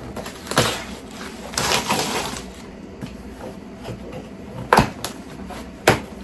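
Cardboard shipping package being handled and opened by hand: a knock, a rasping scrape of cardboard about one and a half seconds in, then a few sharp snaps and clicks near the end.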